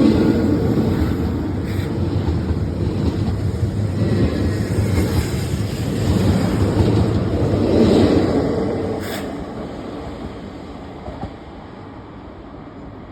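Regio 2N double-deck electric train pulling out and running past, a steady rumble of wheels on rails that swells twice with a couple of short clicks, then fades away over the last few seconds as the train leaves.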